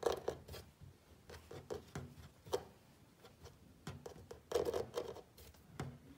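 Fingernails scratching and tapping irregularly on a carved wooden furniture frame, soft scratches with a few sharper ticks among them.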